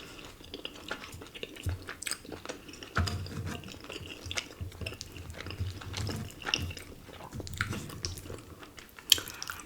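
Close-miked chewing of cheesy ramen and chewy tteokbokki rice cakes: wet mouth clicks and smacks at irregular intervals.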